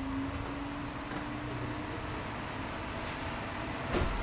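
Sanriku Railway 36-series diesel railcar pulling away from the platform, its engine running steadily with a faint tone that slowly rises in pitch, and one sharp knock near the end.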